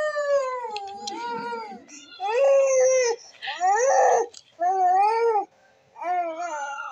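Infant crying: a string of about five wailing cries, each about a second long, separated by short breaths.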